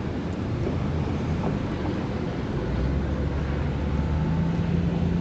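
Low, steady engine drone that grows a little louder in the second half, with a steady hum coming in near the end, over wind on the microphone.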